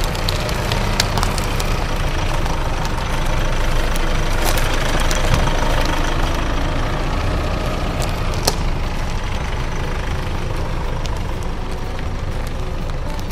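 Mitsubishi L200 pickup's diesel engine running steadily near idle as the truck creeps over a forest track, with a few sharp clicks from under the tyres.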